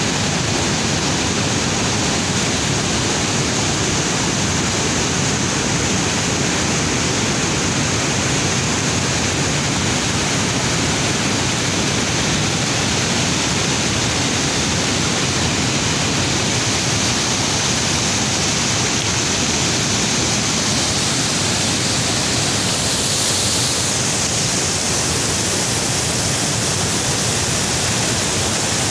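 A muddy river in flood pouring over a wide rocky waterfall and churning over boulders: a loud, steady rush of water.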